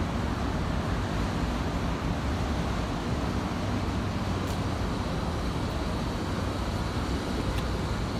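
Steady low mechanical rumble of vehicles or machinery running in a large garage, with a couple of faint clicks.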